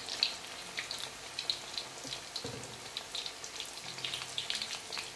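Banana blossom fritters deep-frying in hot oil in a wok: a steady bubbling sizzle with scattered small pops and crackles.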